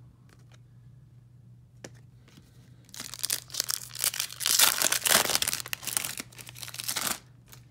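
Foil wrapper of a Donruss Optic basketball card pack being torn open and crinkled by hand: a few light clicks, then about three seconds in a dense crackling of tearing and crinkling foil that lasts around four seconds and stops suddenly.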